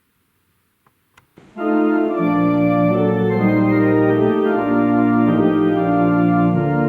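After near silence and a couple of faint clicks, an organ begins about a second and a half in, playing full sustained chords over a held bass note.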